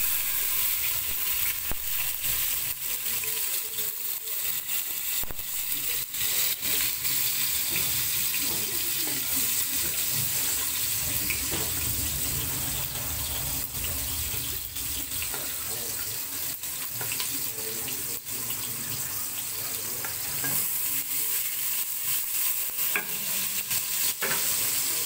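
Garlic, onion and tomato sizzling as they sauté in oil in a stainless steel pot, stirred with a wooden spatula, with scattered sharp clicks over a steady hiss.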